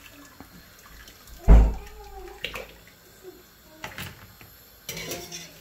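Kitchen handling noises: a heavy low thud about a second and a half in, the loudest sound, then scattered light clicks and taps.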